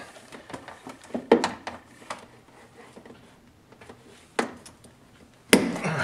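Scattered light clicks and taps of hand tools and plastic water line being handled against a refrigerator's plastic liner, with a sharper, louder click about five and a half seconds in.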